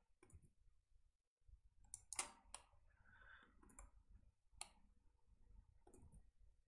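A few faint, scattered clicks from a computer mouse and keyboard, spread a second or so apart over a quiet room background.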